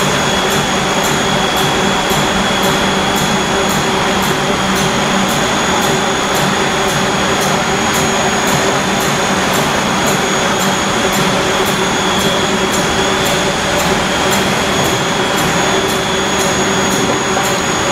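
A food extruder line for dog chews running: a loud steady machine noise with a high-pitched whine and a faint regular ticking about twice a second.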